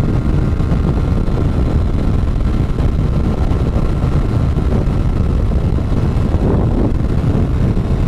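Kawasaki Ninja sport bike cruising at a steady speed: a steady engine drone mixed with wind rushing over the helmet-mounted microphone.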